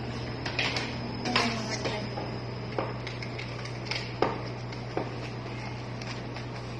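A few sharp clicks and knocks from objects being handled and set down on a service counter, over a steady low hum.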